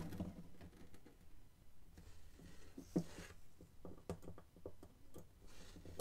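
Light clicks and taps of handling a 3D-printed PLA padlock and a small hex key as the key is fitted into a pin-chamber screw, with one louder knock about halfway through.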